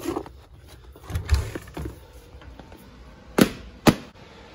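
A door being opened by its round knob, with footsteps, a few dull thumps and then two sharp clicks about half a second apart near the end.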